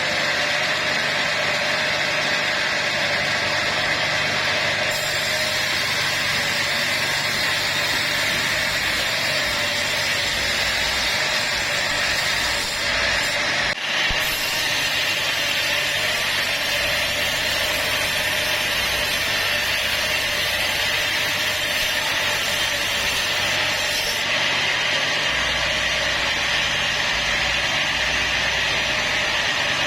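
Sawmill saw running steadily while cutting teak timber, a loud even grinding noise over a low machine hum, broken briefly about 13 seconds in.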